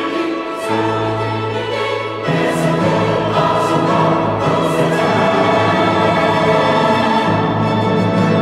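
Mixed church choir with organ, piano, violins, flute and timpani singing the closing phrase of an anthem. About two seconds in they move to the final chord and hold it for about six seconds.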